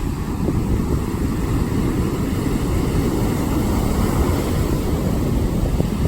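Hurricane-force wind buffeting the microphone in a constant low rumble, over the wash of heavy storm surf.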